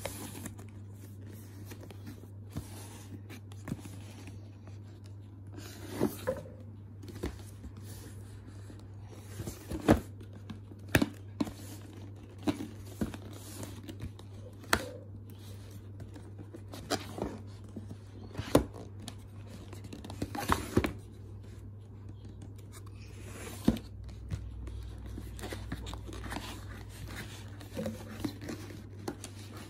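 Cardboard modem box and its packaging being opened and handled: irregular sharp taps and knocks with short crinkles and scrapes of cardboard and wrapping. A steady low hum runs underneath.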